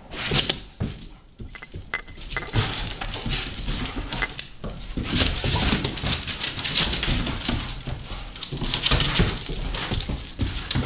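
Rottweiler puppy's claws clicking and skittering on a ceramic tile floor as it scrambles after a flashlight spot: a dense, uneven run of short clicks.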